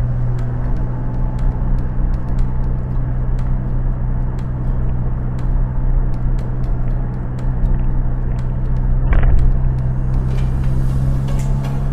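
Steady drone of a motor vehicle's engine running, with a brief louder noise about nine seconds in.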